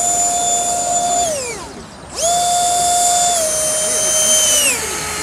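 Electric ducted fan of an RC F-35C model jet whining under throttle: it spools up and holds, winds down about two seconds in, then spools up again and holds before easing off near the end.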